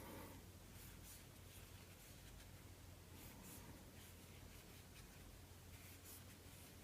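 Very faint, irregular scratchy rustling of a crochet hook working yarn through stitches, over a low steady hum.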